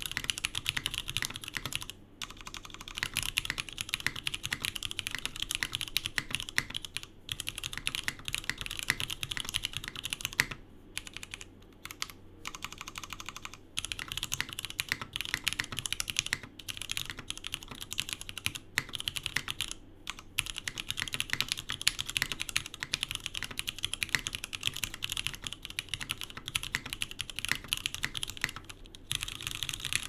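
Fast, continuous typing on an Omnitype Bauer Lite custom mechanical keyboard with stock Cherry MX2A Black linear switches, a polycarbonate plate in an isolation mount, and GMK keycaps: a dense run of keystroke clacks. It breaks off in brief pauses a few times, with several short gaps a third of the way through.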